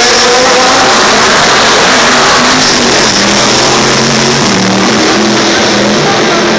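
Open-wheel race car engines running loud as the cars pass, their pitch gliding and stepping up and down.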